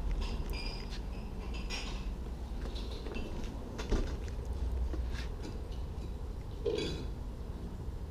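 Scattered light knocks and clinks of wooden planks being handled, over a steady low rumble.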